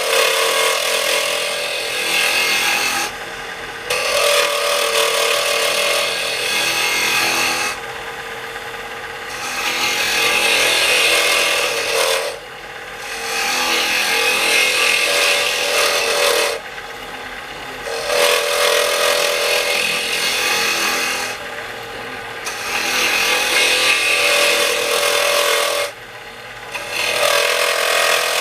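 Wood lathe spinning a burl blank while a turning tool cuts against the wood in repeated scraping passes of about three seconds each, with short quieter breaks between passes.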